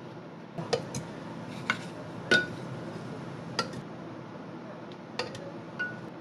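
Metal utensil clinking and tapping against dishware or cookware, about eight irregular knocks, the loudest a little past two seconds in with a short ring, over a steady background hiss.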